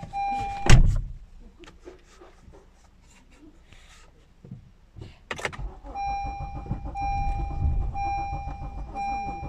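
A sharp thump about a second in, then from about five seconds in a Honda Accord's starter cranking the engine over without it catching, with a repeating beep chime over the cranking. The long no-start crank is the sign of a missing camshaft position sensor B signal (code P0365), traced to a damaged sensor and broken wiring.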